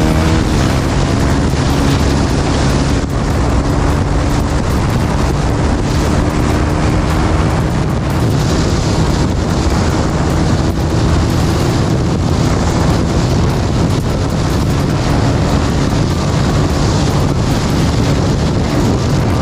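Heavy wind buffeting on the microphone of a moving single-cylinder motorcycle, with the engine running steadily underneath; the engine note is plainest in the first several seconds.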